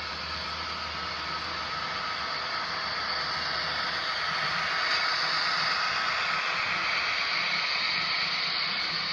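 HO scale model tank car train rolling past on the layout track: a steady hiss and rattle of small metal wheels on rail, getting louder toward the middle of the passage.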